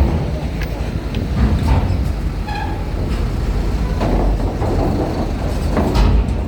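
Heavy vehicles' diesel engines rumbling steadily at a ferry loading ramp, with scattered metallic knocks and a brief high tone about two and a half seconds in.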